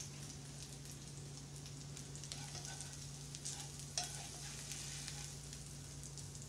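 Fish cakes in butter and oil still crackling in a hot nonstick frying pan just off the heat, as a plastic slotted spatula scrapes them out of the pan, with one sharp clack about four seconds in.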